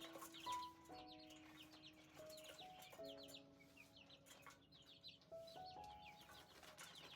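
Soft background music of held chord tones that shift every second or so. Over it, faint chickens chirp, short high downward chirps several times a second.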